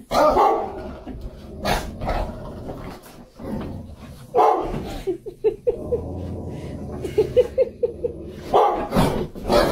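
Dogs barking: several loud single barks spread through, and in between two runs of short, quick barks, several a second.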